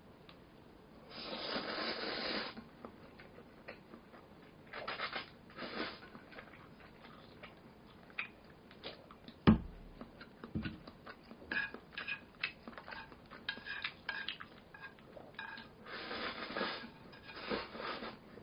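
Eating Buldak meat-spaghetti fire noodles with meatballs: utensils click and clink against the dish, and noodles are slurped in two longer bursts, one shortly after the start and one near the end. One sharp thump comes about halfway through.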